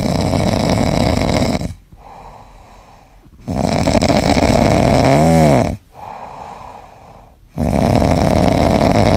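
A sleeping grey cat snoring with its mouth open: three loud, rasping snores about four seconds apart, with quieter breaths between them. The middle snore has a brief whistling tone near its end.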